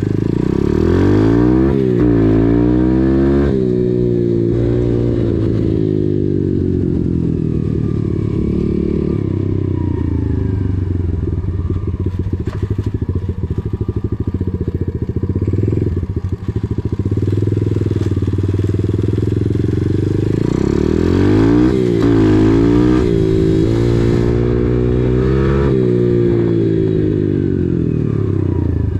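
KAYO TD125 dirt bike's 125cc single-cylinder four-stroke engine running under way, its revs climbing and dropping back again and again, most strongly about a second in and again about three-quarters through.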